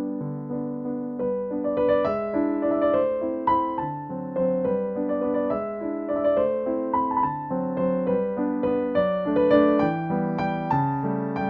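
Background music played on piano: a flowing melody of single notes over held chords.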